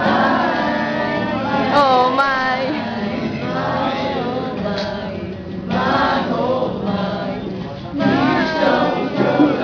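A group of young men singing together in chorus, accompanied by a guitar.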